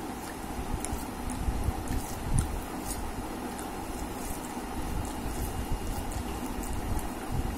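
Fingers squishing and mixing wet rice and dal on a stainless steel plate: soft wet squelching with many small clicks, over a steady background noise.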